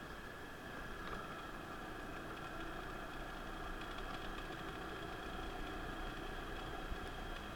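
Car engine running steadily, heard from inside the cabin, with a low rumble and a few faint steady high tones.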